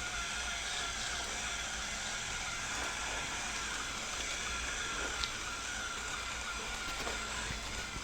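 Robot vacuum running: a steady motor and fan whir with a thin whine above it, and one short click about five seconds in.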